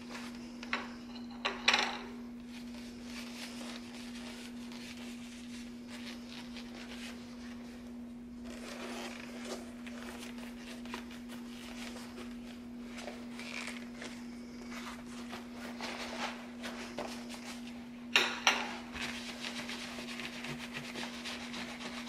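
Hands rubbing and handling a leather catcher's mitt: soft leather rubbing throughout, with a few sharp knocks about a second and a half in and two more near the end. A steady low hum sits under it all.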